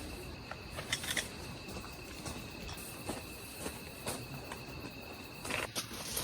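Crickets trilling steadily in a high, thin tone, with scattered light clicks and knocks; the trilling stops near the end.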